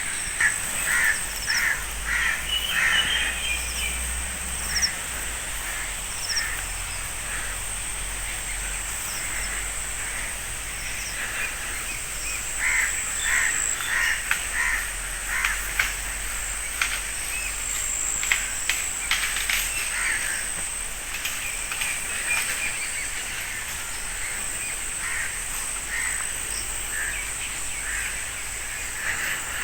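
Crows cawing in repeated series of short calls, thickest in the first few seconds and again about halfway through, over a steady high-pitched hiss.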